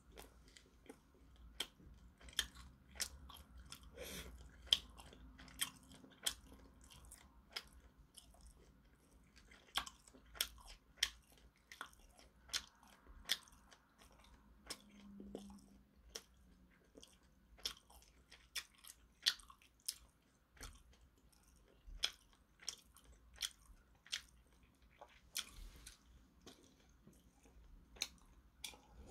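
A person chewing food close to the microphone, with sharp, irregular crunching clicks every second or so.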